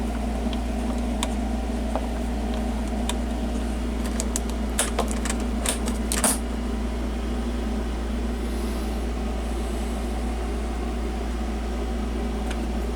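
Steady low electrical hum throughout, with scattered sharp clicks and a quick cluster of them about five to six seconds in, the last the loudest: the controls of a CRT tube tester being clicked and turned while the cutoff is adjusted.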